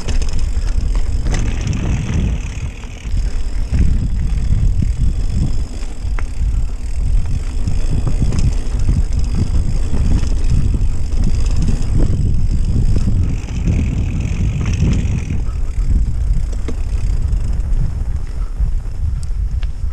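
Mountain bike ridden fast along a rough dirt trail, heard from a handlebar-mounted camera: wind buffeting the microphone over a constant rumble and rattle from the tires and frame on the uneven ground.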